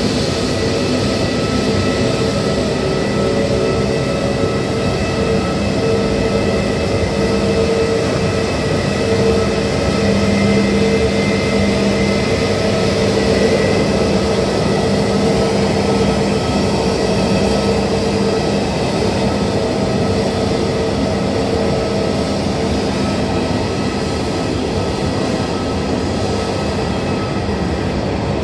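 Engines of a taxiing Airbus A320-family jetliner running at taxi power: a steady jet hum and whine with several held tones, a little louder midway, then easing as the aircraft moves away.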